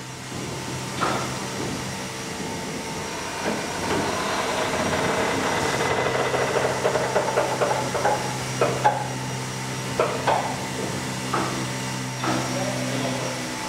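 Steam locomotive's turbo-generator (turbodynamo) running, a steady hum under a hiss of steam that swells a few seconds in. Scattered metallic knocks and clicks sound over it.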